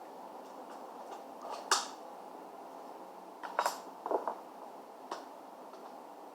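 Small clicks and taps of laptop parts being handled during disassembly: one sharp click just under two seconds in, a quick cluster of clicks around the middle, and one more a second later, over a faint steady hiss.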